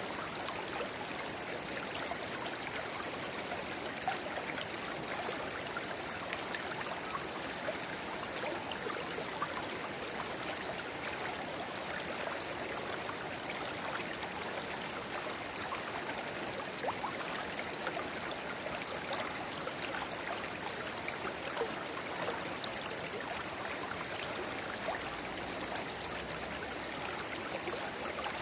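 A shallow river babbling steadily where a small spring-fed rivulet runs into it. An even rush of water is dotted with many small splashes and gurgles.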